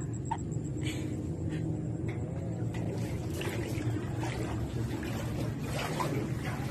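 Soft water sloshing as a cat swims through floodwater, over a steady low hum.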